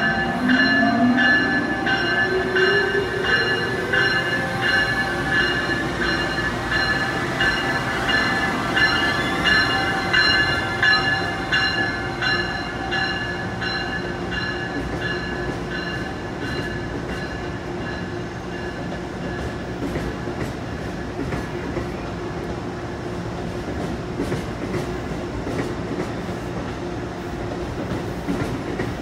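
Amtrak ACS-64 electric locomotive starting its train: the traction motors whine, rising in pitch over the first few seconds as it accelerates, while a bell rings repeatedly and fades away about halfway through. Then the passenger cars roll past with steady wheel-on-rail noise.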